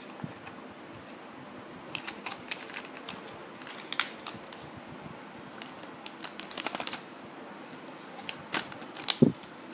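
Scattered light clicks and taps as an iPhone 4S display assembly and its packaging are handled, with a quick run of clicks about two-thirds of the way through and a louder knock near the end.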